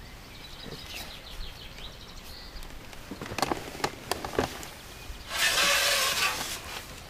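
A fishing pole being handled and pushed out over the water: a few sharp clicks and knocks, then a loud rough rubbing rasp lasting about a second and a half near the end.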